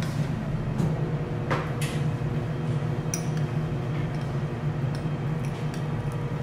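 Teppanyaki counter ambience: a steady low hum with scattered light clicks and clinks of utensils and trays.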